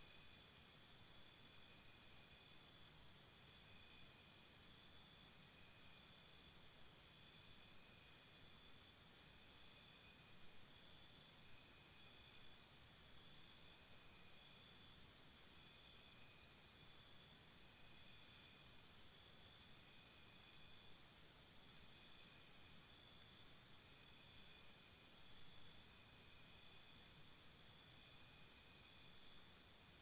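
Faint nature-sound recording of insects chirping in a steady, high, pulsing chorus. Four times a louder, fast-pulsing trill comes in for about three seconds and fades back.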